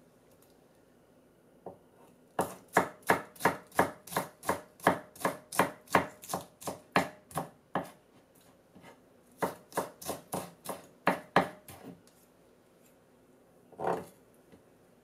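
Kitchen knife slicing myoga (Japanese ginger) into thin strips on a bamboo cutting board: a quick run of chops about three a second, a short pause, then a second run. One duller knock near the end.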